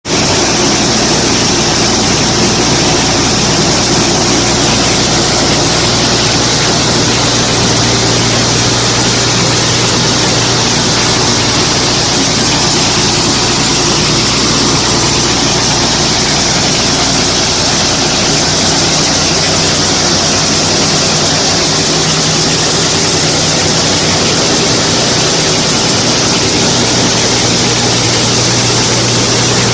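Heavy engine running steadily at a constant speed, with a loud, even hiss over it.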